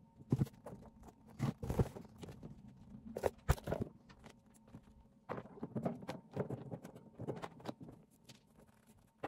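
Fabric hammocks being taken down from a wire rat cage: plastic hanging clips clicking and quilted cloth rustling as they are handled, in short irregular bursts.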